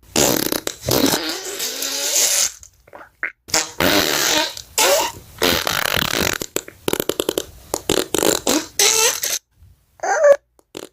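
Farting sound effect: a run of long, loud fart blasts, a rapid sputtering stretch in the middle, then shorter bursts with brief pauses between them.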